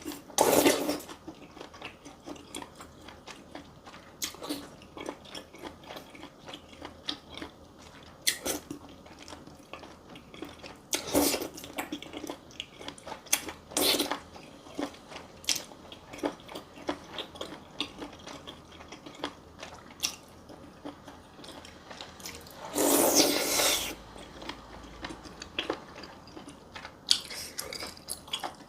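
Close-miked eating: wet chewing and biting with frequent mouth clicks and smacks, and a few louder bites, the longest about 23 seconds in.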